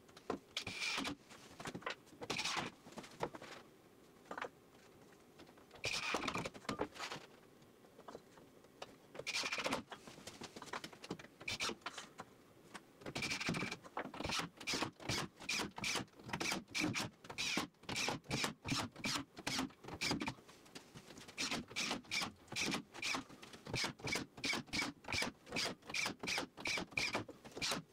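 Cordless drill driving screws into MDF strips in short bursts of motor whine. The bursts come scattered at first, then from about halfway through in quick, evenly spaced succession.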